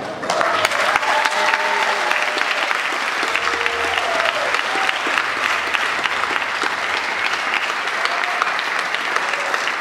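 Large audience applauding, a dense, steady clatter of many hands clapping that starts suddenly just after the beginning, with a few voices calling out within it.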